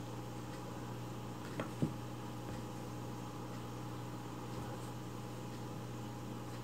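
Steady low electrical hum of room noise, with two short soft sounds in quick succession a little under two seconds in.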